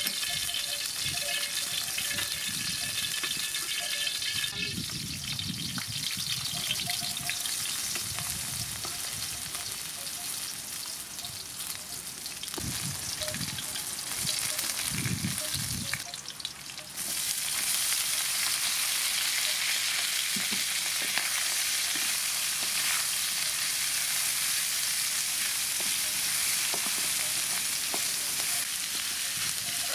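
Garlic and then sliced cow heart sizzling in hot oil in an aluminium wok, stirred with a wooden spatula. The sizzle turns louder and steadier a little over halfway through.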